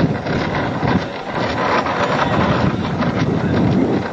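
A car driving, heard from inside: a steady rumble of road and wind noise.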